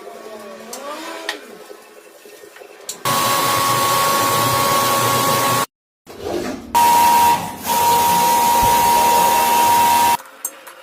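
A power tool running with a steady high whine over a hiss, in two long stretches broken by a sudden cut to silence.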